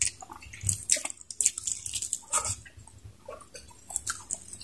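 Chewing and biting into chicken: irregular wet smacks and clicks of the mouth.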